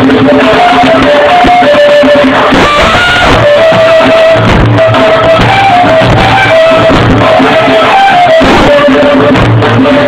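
Colombian gaita ensemble playing cumbia live: a gaita, the cane duct flute, carries a melody of held notes over a steady beat of hand drums.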